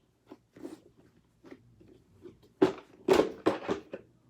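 Hot Wheels toys being handled: scattered plastic and metal clicks and rustles, with a burst of louder clatter about two and a half seconds in that lasts around a second and a half.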